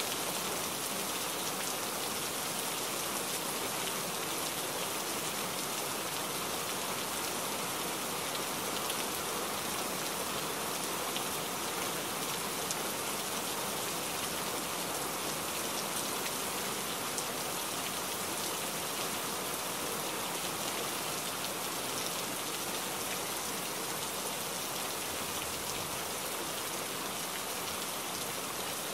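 Steady hiss of heavy rain with faint scattered ticks of drops, heard from inside a truck cab driving on a wet highway.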